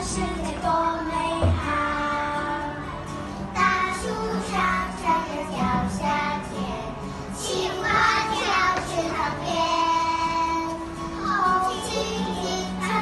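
A group of young children singing a children's song together over musical accompaniment.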